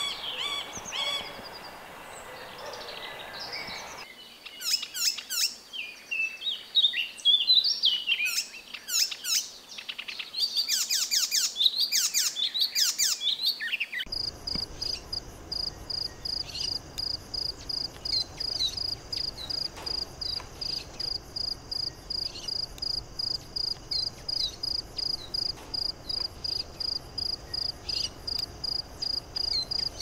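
A middle spotted woodpecker's nasal, drawn-out calls, ending within the first two seconds. Then a songbird sings quick bursts of sweeping notes for about ten seconds. From about halfway a steady, high insect trill pulses about three times a second, with a few faint chirps.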